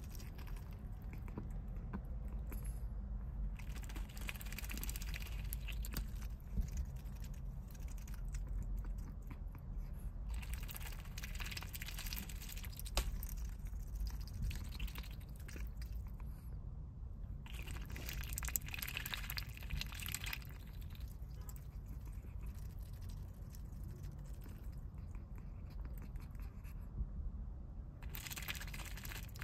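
Small white domestic duck dabbling in a paper cup of ice water: her bill crunching and clicking against the ice cubes and slurping the water, in spells of a few seconds with pauses between, over a steady low rumble.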